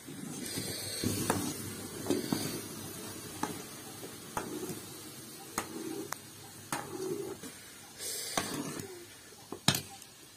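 Metal spatula stirring thick achar paste in a steel kadai, knocking and scraping against the pan about once a second, with a faint hiss from the cooking paste.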